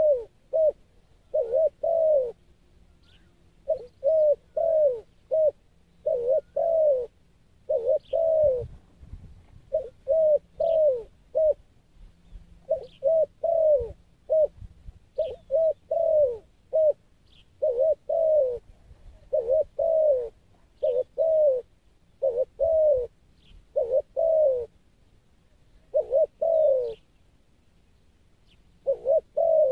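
Spotted dove cooing: repeated phrases of two or three short coos, each note rising then falling, coming one after another with brief pauses. Faint high chirps of small birds sound now and then.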